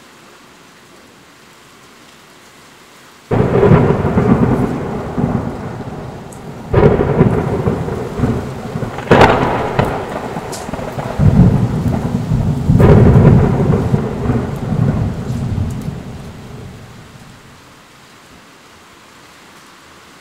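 Steady rain with a long peal of thunder: a sudden crack about three seconds in, then rumbling with several more cracks, dying away back to the rain a few seconds before the end.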